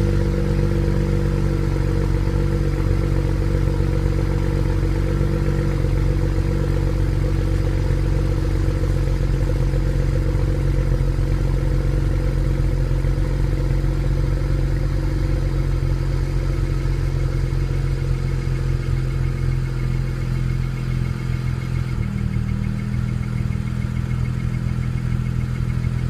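BMW 335xi turbocharged straight-six on its stock exhaust, idling steadily while it warms up after a cold start; the idle note shifts slightly about six seconds in and again near the end.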